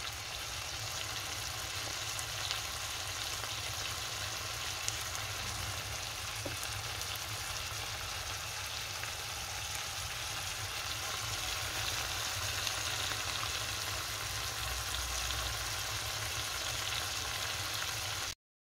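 Liver and tomato pieces in a spiced sauce sizzling steadily in a nonstick frying pan, with a few faint ticks. The sound cuts off suddenly near the end.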